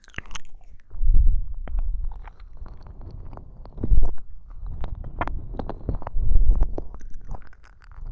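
Close-up ASMR ear licking into a binaural microphone: a string of wet mouth clicks and smacks, with low rumbling swells about a second, four seconds and six seconds in.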